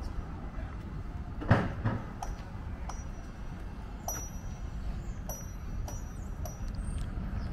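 Outdoor background rumble with a thump about one and a half seconds in, then a series of light clicks, each with a brief high ring.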